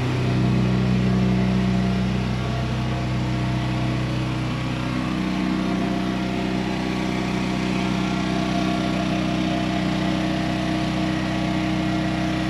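An engine running steadily at constant speed, a steady drone that is a little louder for the first couple of seconds.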